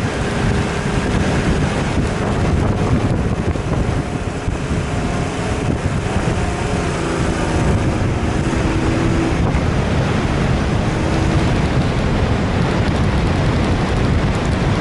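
Heavy wind noise buffeting the microphone over the steady running noise of a vehicle, with a few faint tones coming and going midway.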